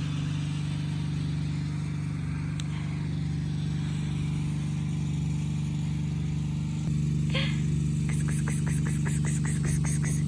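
An engine runs steadily with an even, low hum. In the last couple of seconds a series of quick ticks, about five a second, comes in over it.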